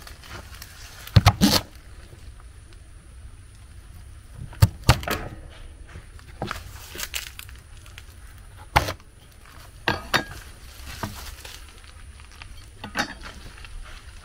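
Irregular knocks, clicks and light scrapes of food being handled during preparation, about a dozen over the stretch, the loudest about a second in and again near five and nine seconds.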